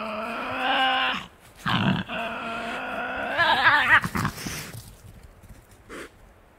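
Tasmanian devil growling: a long droning growl that rises in pitch and stops about a second in, a short low grunt, then a second long growl that breaks into a wavering, warbling snarl, followed by a few fainter grunts.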